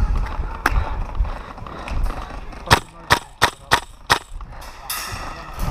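Airsoft rifle firing single shots: one sharp crack about half a second in, then five more in quick succession around the middle, roughly three a second.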